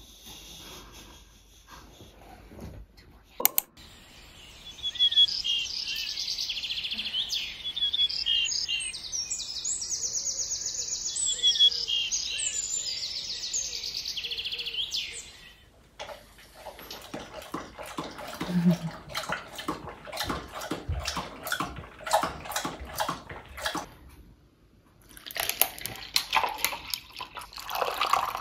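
Birds chirping and singing in a dense run of quick, high notes for about ten seconds, followed by a stretch of irregular clicks and taps.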